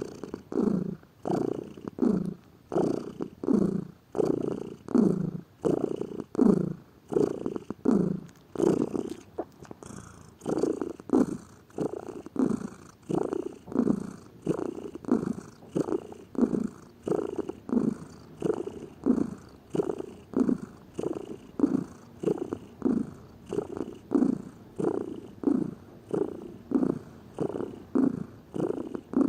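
Domestic cat purring steadily, in an even pulsing rhythm of about one and a half pulses a second.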